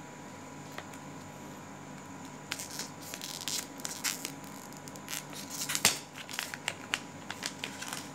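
Handling noise from a phone held close to its microphone: scratching and crackling with a run of sharp clicks from about two and a half seconds in, the loudest near six seconds, over a faint steady hum.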